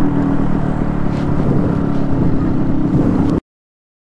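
Motorcycle engine running steadily at low revs, with road and wind noise. The sound cuts off suddenly about three and a half seconds in.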